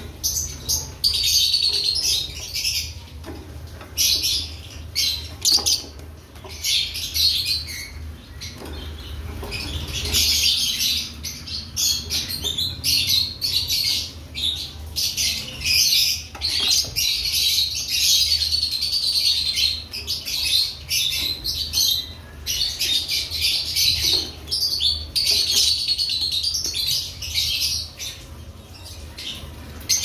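Lovebird chirping in rapid high-pitched bursts, on and off, with short pauses between runs.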